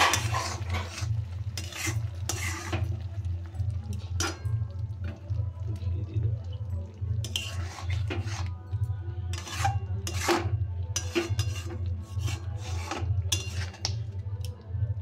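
Metal spatula stirring and scraping thick paneer curry in a metal kadai: a string of irregular scrapes and clinks against the pan, over a steady low hum.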